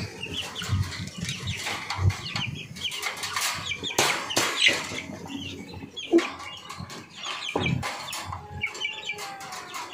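A pen of young chickens peeping and clucking, with many short high calls throughout. Scattered knocks and scuffles come from the birds moving about.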